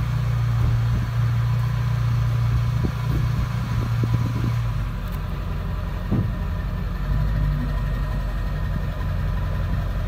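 Ford 7.3 Power Stroke turbo-diesel V8 idling steadily, its low drone shifting lower about halfway through.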